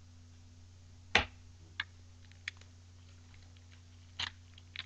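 Hands handling trading cards and a foil card pack: a sharp tap about a second in, a couple of light clicks, and a short crinkle of the pack wrapper a little past four seconds in.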